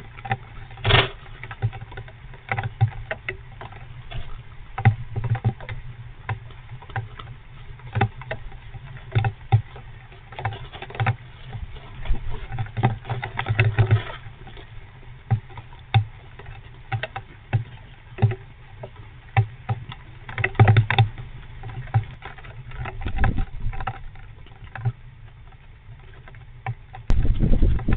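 Fox squirrel moving about and grooming in a wooden nest box: irregular scratching, rustling and small taps against the box. A louder low thumping begins near the end.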